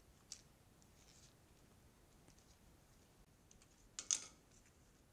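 Faint small clicks of a ballpoint pen's plastic and metal parts being handled as it is taken apart, with a louder short clatter about four seconds in.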